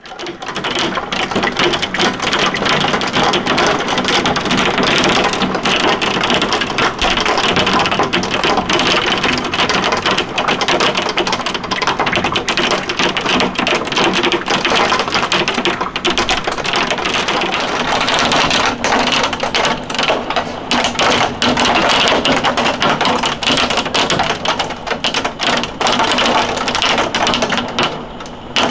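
Hailstorm: hailstones and heavy rain pelting down, a dense, continuous rattle of countless hailstone impacts over a steady rush of rain.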